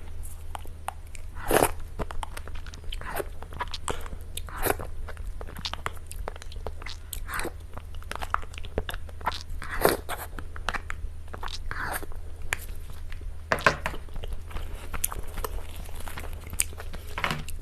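Close-miked eating of cake: a string of small crunchy bites and chewing clicks, with a few louder bites about one and a half, four and a half, ten and thirteen and a half seconds in, over a steady low hum.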